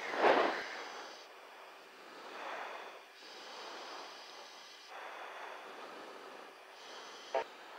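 Crew member breathing into an oxygen-mask microphone on a jet cockpit intercom: slow hissing breaths, each a second or two long, over steady cockpit noise, with a sharp click near the end.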